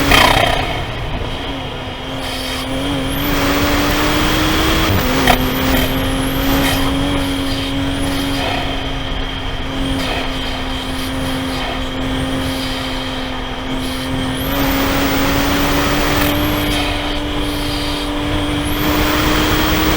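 Toyota GR Supra (A90) engine heard from inside the cabin on a wet track, its pitch climbing slowly, dropping at an upshift about five seconds in, then climbing again. A hiss of tyre spray swells and fades over it.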